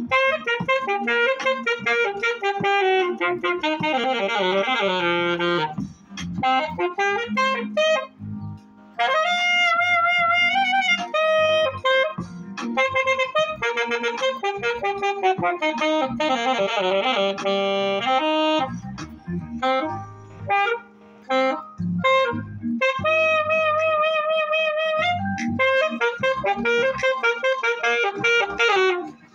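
Alto saxophone playing a melody in phrases, with long held notes that waver with vibrato and short breaths between phrases, over a backing track with a low bass line from a portable speaker.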